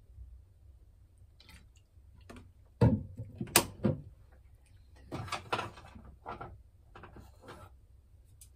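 Kitchen handling noises on a countertop. A bottle is set down with a thud about three seconds in, followed by a sharp click. Then come several short bursts of clattering from utensils and containers being handled.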